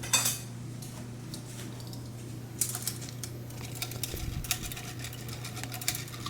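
A utensil clinking and scraping against a bowl as beaten eggs and pre-cooked vegetables are stirred together. The quick, irregular taps come thicker in the second half, over a steady low hum.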